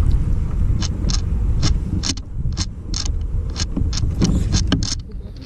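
Wind rumbling on the microphone on an open boat, with a run of short, high chirps or clicks, about two or three a second, that stop near the end.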